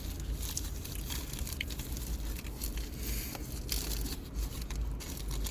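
Food packaging being handled: irregular crinkling and tearing of wrapping.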